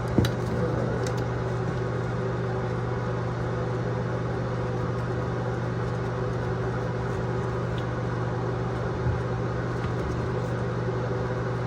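Steady low mechanical hum, even throughout, with a couple of faint knocks near the start and again about nine seconds in.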